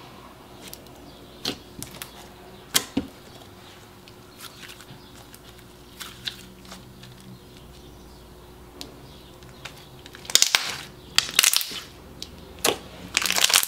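Thick, glossy slime being stretched, folded and squished by hand, giving scattered sticky clicks and small pops. Denser runs of crackling come twice near the end as it is pressed and kneaded.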